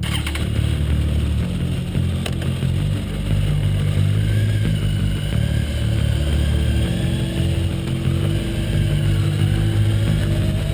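2008 Kawasaki ZX-10R inline-four sportbike engine running as the bike rolls out onto the track, rising and falling in pitch.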